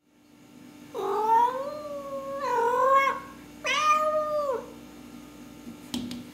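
Long-haired domestic cat giving three long, drawn-out meows, the second one shorter, a cat asking to be let outside.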